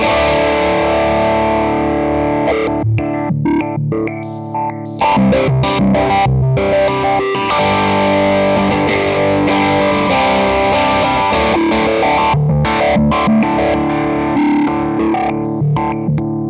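Overdriven electric guitar strumming big sustained chords through an EarthQuaker Devices Spatial Delivery envelope filter, the filter engaged momentarily by holding its footswitch down. A fresh loud chord strikes about five seconds in after a brief drop, with further chord hits following.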